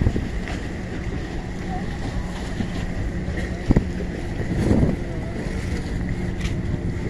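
A boat engine runs steadily with a low drone over choppy river water, while wind buffets the microphone. There is one sharp knock about halfway through.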